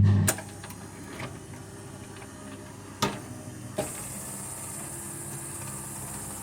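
A song on a Rock-Ola 460 jukebox ends abruptly, then the record-changer mechanism runs with a steady whirr and hiss and several sharp clicks as it cycles the record, getting a little louder about halfway through.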